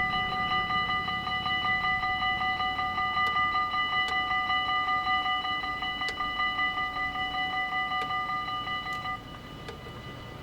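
Dutch level-crossing warning bell ringing rapidly with a bright, multi-toned clang, then cutting off suddenly about nine seconds in. A few sharp clicks sound during and after the ringing.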